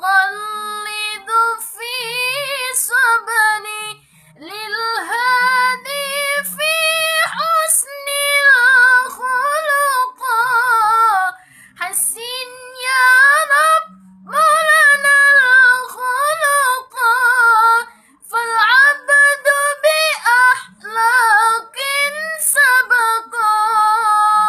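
A solo female voice singing a shalawat, an Arabic devotional song, in long ornamented phrases with wavering, gliding notes and short breaks for breath between them.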